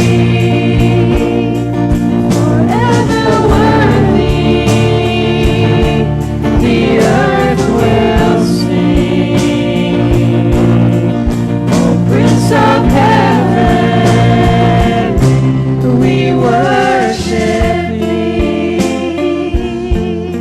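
Christian worship music: a band playing with sung voices that hold and bend long notes over a steady beat.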